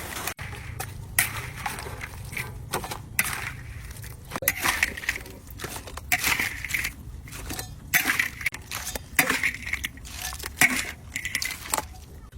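Crab shells being cracked and crunched: irregular sharp cracks and crunches, several close together.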